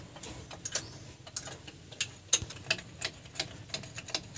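Sharp metallic clicks and taps at irregular intervals, about two or three a second, from hand tools working on the carburetor to remove it from the engine.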